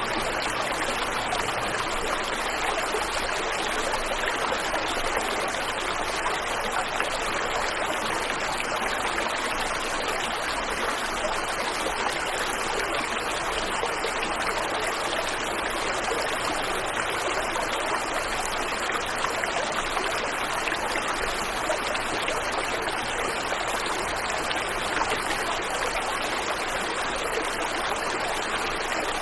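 Steady rushing of a waterfall and stream, a continuous even splashing of falling and flowing water.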